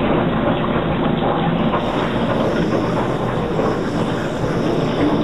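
Tap water running steadily from a faucet into a laundry sink, splashing over a dog as it is rinsed.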